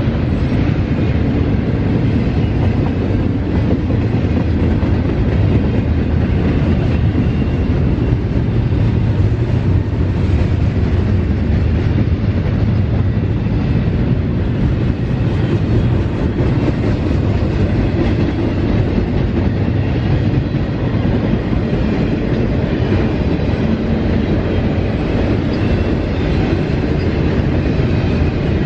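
Double-stack intermodal container well cars rolling past at a steady speed: a continuous low rumble of steel wheels on the rails that holds even throughout.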